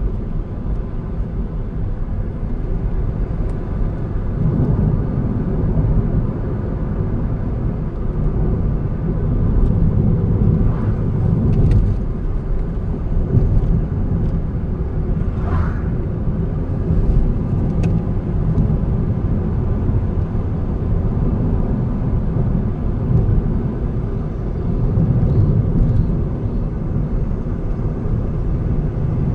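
Car driving on a road: steady low rumble of engine and tyre noise. A short rising squeak about halfway through.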